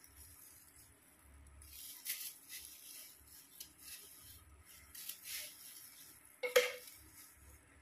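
Disposable plastic gloves rustling against wet, colour-coated hair in short scrapes, with one sharp knock about six and a half seconds in.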